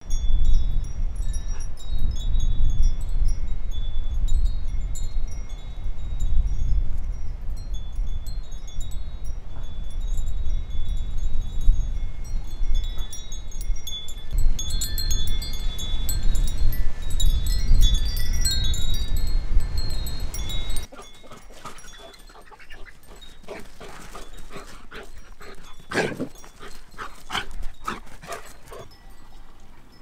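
Metal wind chimes ringing in the wind, with wind rumbling on the microphone. About twenty seconds in this cuts to a quieter stretch of two dogs playing, with a few short high calls.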